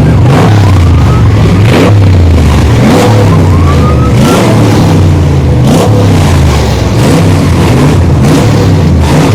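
Many car engines running together at once, loud and dense, with engines repeatedly revved in short rising bursts over the steady low drone.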